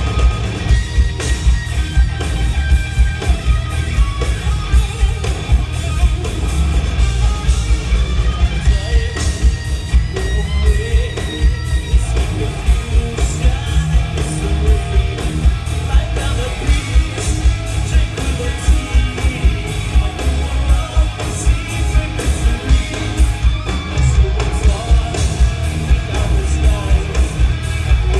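Hard rock band playing live: electric guitars and a steady, pounding drum beat, with a lead vocalist singing over the top.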